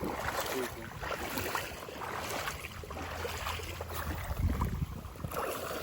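Wind rumbling on the microphone: a steady low rumble with a noisy hiss over it.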